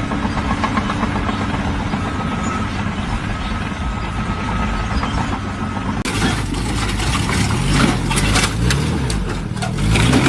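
An engine running with a steady low hum; about six seconds in it changes abruptly to engine sound with shifting pitch and a clatter of sharp knocks and clicks.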